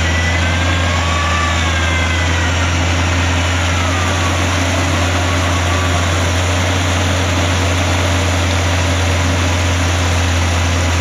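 Nissan Patrol GR's engine idling with a steady deep hum. Over it, a thin whine wavers up and down in pitch and fades out about halfway through.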